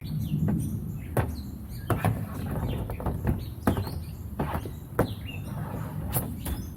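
Sharp clacks of a hockey stick and puck on plastic shooting tiles during wrist-shot practice, one every second or so. Birds chirp in the background.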